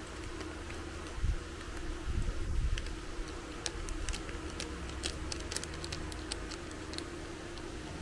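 A scatter of short, light clicks and taps, irregular and several a second in places, over a steady low hum from a fan or appliance, with a few soft low thumps in the first few seconds.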